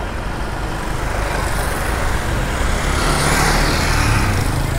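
Road traffic of cars and motorcycles going by. One vehicle passes close, and the noise swells to a peak about three to four seconds in.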